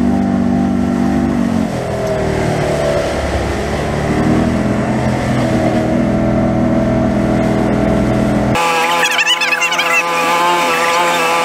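Boat engine running steadily with the boat under way, its pitch shifting slightly about two seconds in. Near the end the sound cuts abruptly to a higher, thinner engine drone with the deep low end gone.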